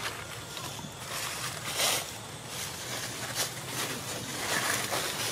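Dry leaves rustling and crackling in a few short bursts, the loudest about two seconds in, over a steady outdoor background.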